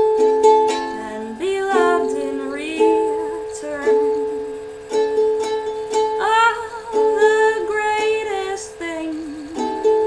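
Ukulele strummed in slow chords, with a woman's voice singing over it at times, its pitch sliding between notes.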